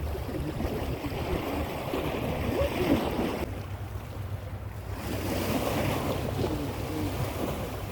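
Wind buffeting the microphone over the wash of sea waves, a steady rushing noise with a low rumble that eases for a moment in the middle.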